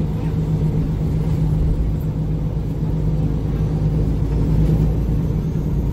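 Diesel engine of a MAN Lion's City G (A23) articulated bus idling with a steady, even hum.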